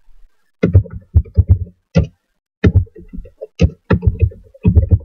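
Computer keyboard typing: about fifteen uneven keystrokes with a heavy low thud to each, coming in short quick runs with brief pauses between.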